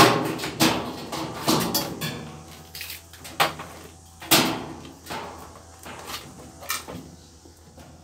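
Rustling and knocking of a handheld phone rubbing against clothing as it is carried, with a string of sharp clunks. The loudest clunk comes at the very start, and the sounds thin out toward the end.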